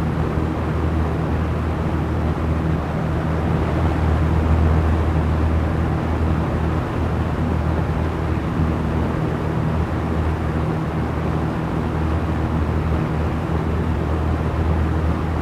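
Small electric fan running steadily: an even rush of air with a low, steady motor hum underneath.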